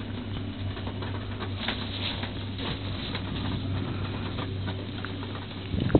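Rain pattering on a cable-car gondola cabin as scattered faint ticks, over a steady low hum.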